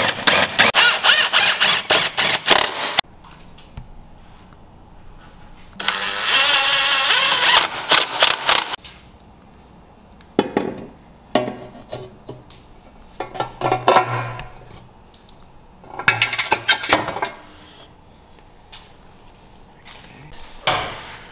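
Cordless impact wrench hammering bolts tight on a car's underbody, in repeated bursts: two long runs of about three seconds at the start and around six seconds in, then several shorter ones.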